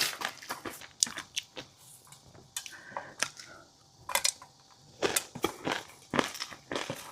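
Close-miked mouth eating sounds of chewing fish roe: a quick run of crisp clicks and pops, easing off for a second or two in the middle.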